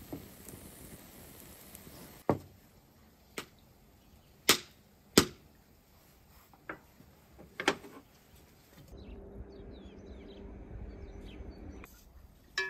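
Sharp, separate clicks and knocks of cooking utensils against a pan, bowl or board, about six of them over several seconds. Then a low steady hum for about three seconds, and one more clink near the end.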